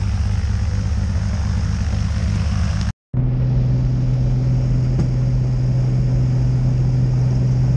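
Piston engine and propeller of a high-wing single-engine light aircraft running with a steady low drone. The sound cuts out briefly about three seconds in, then comes back louder and closer as the plane rolls across the grass.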